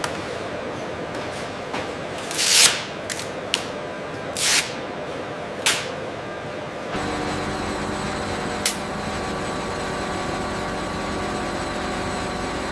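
Industrial workshop machinery: several short bursts of hissing air with a few sharp clicks. About seven seconds in, this gives way to a steady machine hum with several steady tones and one more click.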